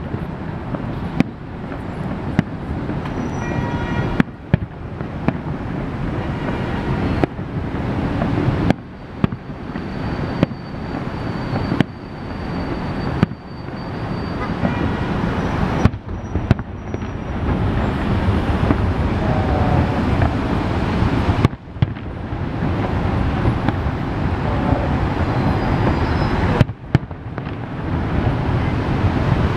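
Aerial firework shells bursting one after another in a rapid, irregular series of bangs over a continuous rumble of reports ringing off the buildings. The display grows louder and denser in the second half.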